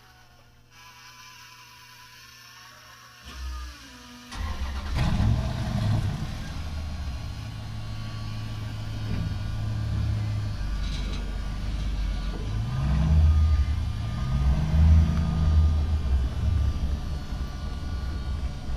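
An engine starting about four seconds in, then running with its pitch rising and falling a few times near the end as it revs.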